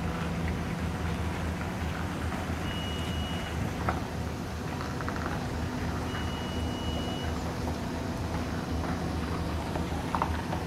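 Engine of a heavy multi-axle modular transporter running steadily at low speed as the load rolls past, with two long high warning beeps a few seconds apart.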